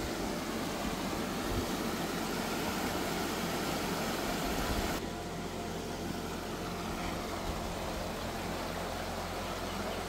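Creek water rushing over rocks, a steady even rush that turns duller and slightly quieter about halfway through.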